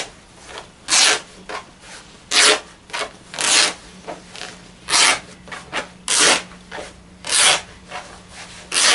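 Raw cotton canvas being ripped by hand in a straight line along the cut, in a series of about seven rasping tearing strokes roughly a second apart.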